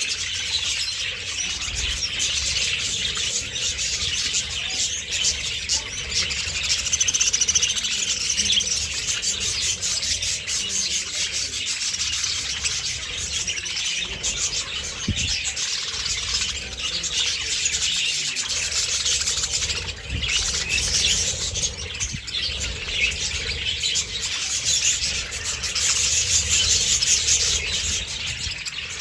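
A large flock of budgerigars chattering and chirping together, a dense continuous warbling of many overlapping calls.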